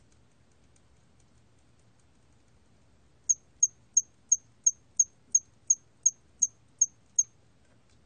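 Song of a 털귀뚜라미 (hairy cricket), recorded at 27 °C: a run of twelve short, high-pitched chirps at about three a second, starting about three seconds in. Fainter, scattered ticks come before it.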